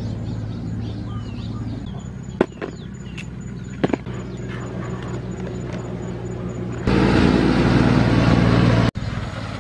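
A motor engine running steadily with a low hum, louder for about two seconds near the end before cutting off abruptly, with a couple of sharp clicks.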